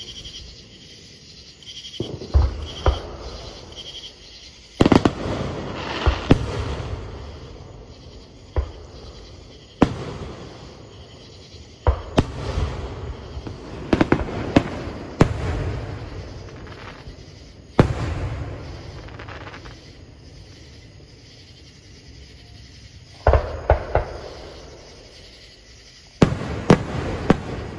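Distant aerial fireworks display: shells bursting in irregular clusters of sharp bangs, each group trailing off in a long rolling rumble.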